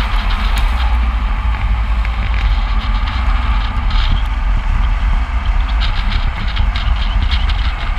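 Wind rushing over and buffeting the microphone of a camera moving at speed, with a heavy low rumble of road noise and a few brief hisses.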